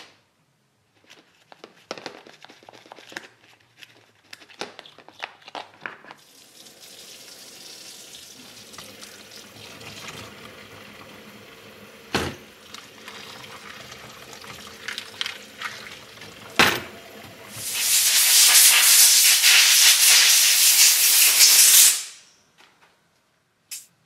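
Small clicks and scraping of alloy parts being handled in a plastic tub, then a kitchen tap running into a stainless steel sink as oven-cleaner foam is rinsed off the stripped parts, with a couple of sharp knocks. Near the end a much louder hissing rush lasts about four seconds.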